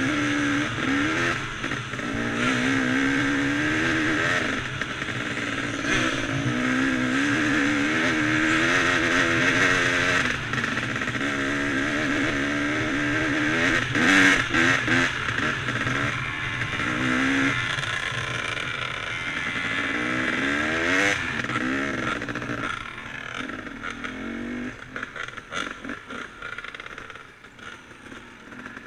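Off-road dirt bike engine heard from the rider's helmet, revving up and falling back again and again as it is ridden along a dirt trail, over a steady rushing noise. In the last few seconds the revs drop and the engine quietens toward an uneven idle as the bike slows.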